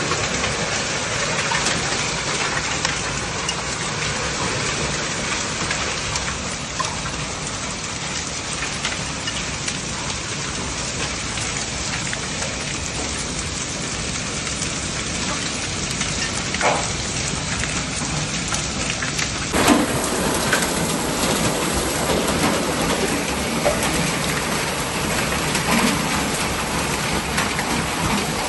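Heavy rain mixed with hail pelting a small concrete courtyard: a steady dense hiss with scattered ticks, and one sharp crack about two-thirds of the way through.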